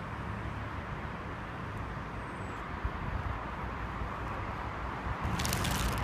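Steady hum of road traffic from nearby city streets, growing louder near the end.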